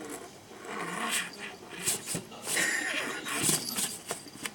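A pet cat making short vocal sounds, mixed with scattered rustles and light knocks.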